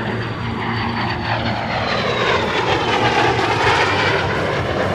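De Havilland Vampire's Goblin turbojet flying past, a high whine falling in pitch as it goes by, loudest about three to four seconds in.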